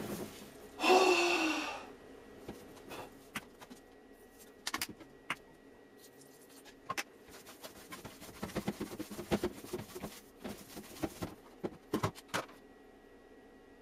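Kitchen handling noises: scattered small clicks and taps, with a short loud rush of noise about a second in, over a faint steady hum.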